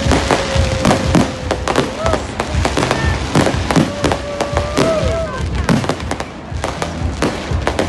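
Fireworks going off in a rapid string of sharp bangs and crackles, thinning briefly near the end.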